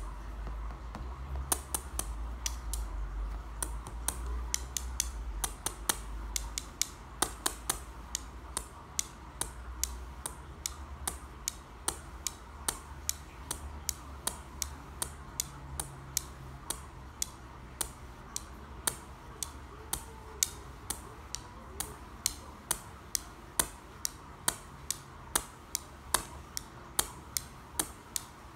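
Small glazed pool tiles tapped against each other, giving sharp clicks at about two a second in a steady rhythm.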